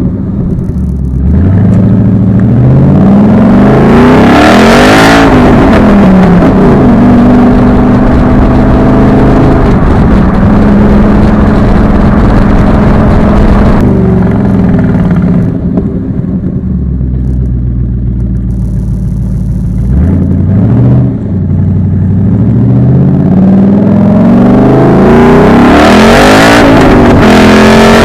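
A 2012 Ford Mustang Boss 302's 5.0-litre V8 through its modified exhaust (resonator-deleted side pipes, SLP Loudmouth axle-backs) under hard acceleration. Over the first few seconds the revs climb, then the engine runs at a steadier, lower note, and over the last third it climbs again in a second long pull.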